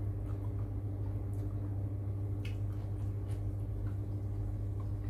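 Soft wet chewing and small mouth clicks of someone eating a spicy Thai salad, a few at a time, over a steady low hum.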